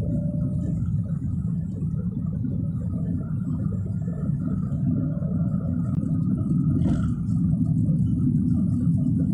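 Steady low rumble of a car's engine and tyres on the road, heard from inside the cabin while driving, with one brief click about seven seconds in.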